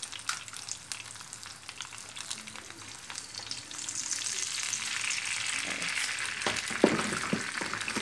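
Sucuk slices and eggs frying in a little olive oil in a pan, a steady crackling sizzle that grows louder a few seconds in, as a freshly cracked second egg spreads into the hot oil. A few sharp knocks near the end.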